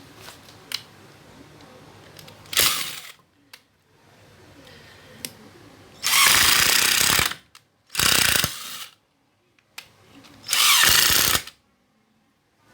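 Black & Decker 12V cordless drill run in short trigger bursts: one brief burst, then three runs of about a second each.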